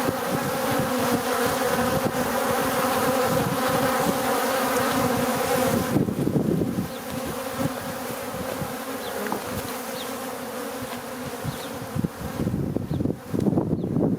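Swarm of bees buzzing close around a beehive entrance, mostly large bees the beekeeper takes for drones. The buzzing is thick and steady, then thins about six seconds in. A few low thumps come near the end.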